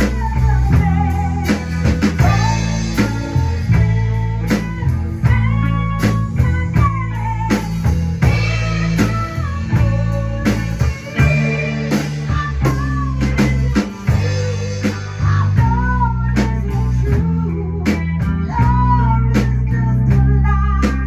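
Live blues band playing: an electric guitar lead with bent, wavering notes over bass and drums.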